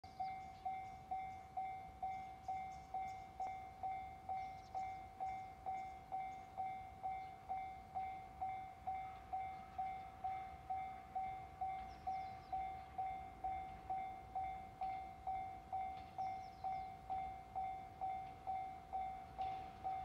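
Japanese railway level crossing warning bell ringing steadily, a single-pitched ding repeated about twice a second as the crossing signals a train approaching.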